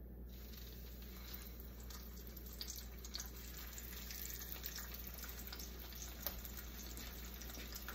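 Steak sizzling in a frying pan heated to its smoke point: a steady hiss with small crackles.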